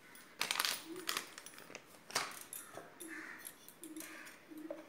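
Light clicks and rustles of a spoon and spice container against a steel mixing bowl as ground spices are added. In the background, from about halfway through, a faint short note repeats about twice a second.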